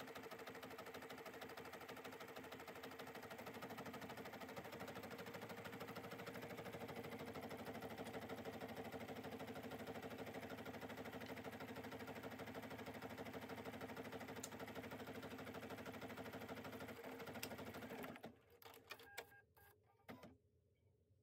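Bernina 790 embroidery machine stitching out a design, a steady rapid needle rhythm that stops abruptly about eighteen seconds in, followed by a few faint clicks.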